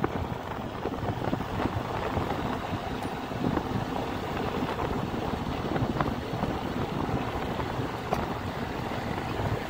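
Wind rushing over the microphone with a steady low rumble, as heard when filming from a moving vehicle.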